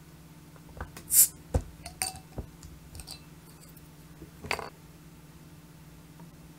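Glass beer bottle and drinking glass being handled: a few clinks and light knocks, with a short hiss about a second in as the bottle's cap comes off, and a louder scrape about two-thirds of the way through.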